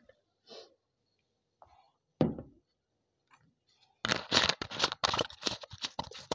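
A glass mug set down on a table with one sharp knock. About four seconds in, a thin plastic water bottle crackles in rapid crinkles for about two seconds as it is gripped and its cap is twisted.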